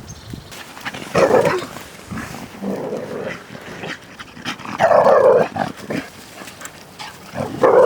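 A dog vocalizing in four short bursts, spaced a second or two apart.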